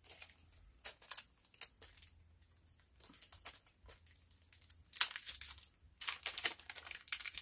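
Small jewelry packet crinkling as it is handled and opened, in scattered bursts of short crackly rustles, busiest about five seconds in and again near the end.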